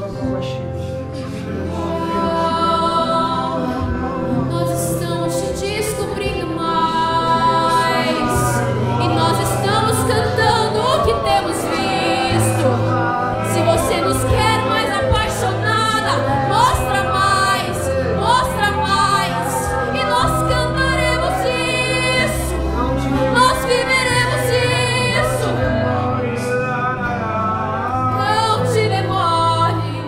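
A woman singing a worship song live, accompanied by acoustic guitar and keyboard with a sustained low bass line.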